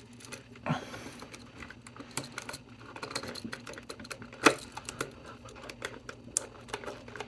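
Scattered small clicks and taps of needle-nose pliers and copper wire against an outlet's terminal screws as the wire loops are bent and hooked on, with one sharper click about halfway through.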